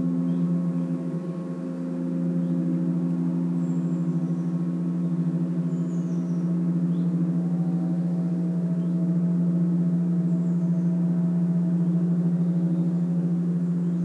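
Gong ringing on in a long, sustained wash with no fresh strike: a deep steady hum under several overtones that swell and fade.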